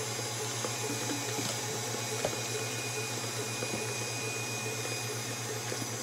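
Electric mixer running steadily, its motor humming as it beats cake batter.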